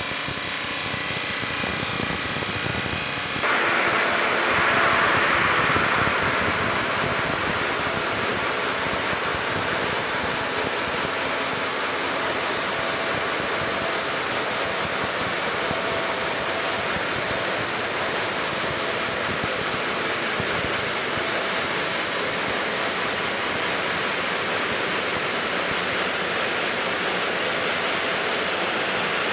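Wanlong granite cutting machine's large diamond circular saw blade running through a granite block under a water-cooling spray: a steady, rushing hiss of blade and water with a constant high-pitched edge. For the first few seconds a steadier machine hum with a few held tones is heard instead, changing to the rushing sound about three seconds in.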